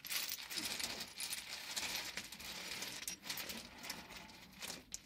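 Small stones clattering and scraping as they are raked and spread out by hand on stony ground: a dense, continuous run of small clinks and rustles.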